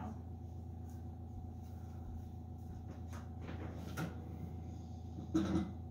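Faint knocks and clicks of kitchen cupboards and dishes being handled while someone searches for a dish, over a steady low hum.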